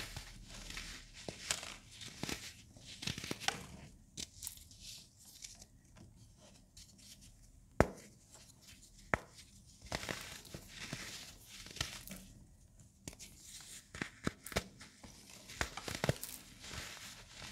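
Hands crumbling and snapping chunks of set baking soda, a crisp crackling and crunching with scattered sharp snaps. The loudest snap comes about eight seconds in as a block is broken apart; there is a quieter lull shortly before it.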